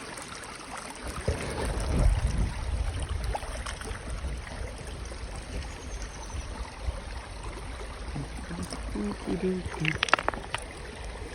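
Creek water running steadily, with a low rumble on the microphone through the middle and a few sharp clicks about ten seconds in.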